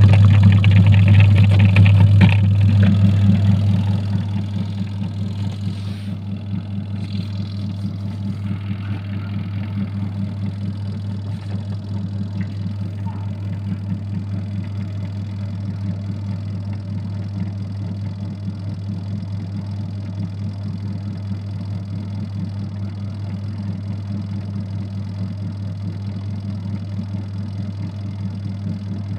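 Adler AD8051 mini washing machine's motor running with a steady low hum. It is louder for the first few seconds, then drops down and runs on evenly.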